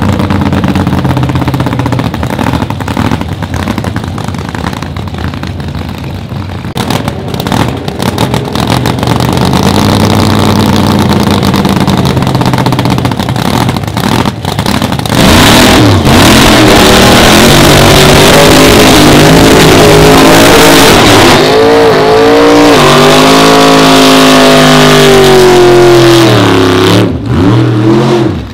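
Supercharged drag car engine idling with a couple of short rev blips, then from about halfway through a long, very loud burnout: the engine held at high revs with the pitch wavering as the rear tyres spin, cutting back near the end.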